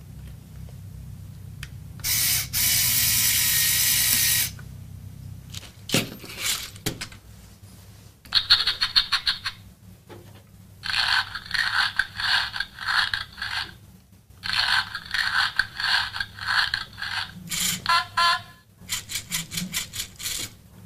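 LEGO Mindstorms EV3 Puppy robot's motors whirring and ratcheting through their gears in repeated bursts of rapid pulses, each burst lasting one to three seconds. A loud hiss runs for about two seconds near the start, followed by a few clicks.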